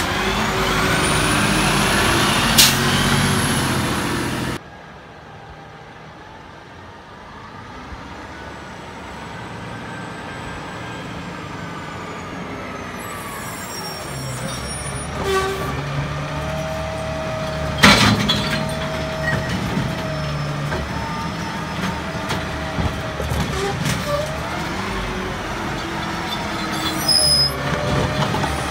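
Autocar ACX garbage truck with a New Way Roto PAC side-loader body. Its engine runs loudly, cuts off suddenly about four seconds in, then comes back faint and grows louder as the truck approaches. A sharp air-brake hiss comes a little past halfway, followed by steady running with a constant whine.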